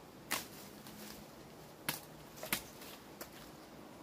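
Woody sapling branches being chopped with a blade: three sharp chops and a fainter fourth, unevenly spaced, over a faint forest hiss.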